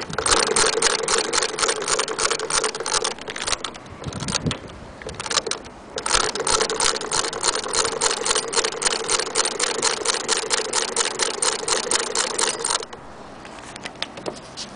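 Hand-cranked 1890s Singer 12K sewing machine stitching through denim, its needle mechanism clicking in a rapid, even rhythm. It runs for about three seconds, gives a few scattered clicks, then runs steadily again before stopping about two seconds before the end.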